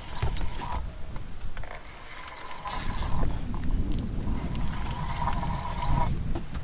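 Fishing reel being cranked against a hooked pike, a mechanical whirring and clicking of the reel's gears that grows louder about halfway through.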